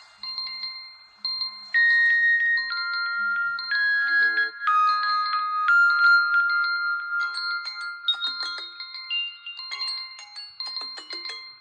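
Smartphone alarm tone: a melody of high, clear pitched notes, some overlapping, that gets louder about two seconds in.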